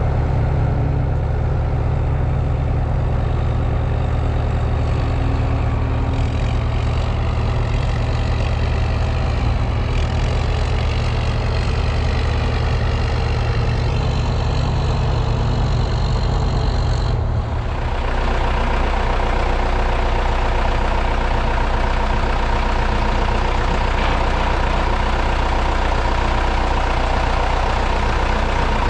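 John Deere 6410 tractor's diesel engine running steadily while driving. About 17 seconds in, the engine sound changes abruptly to a different steady note.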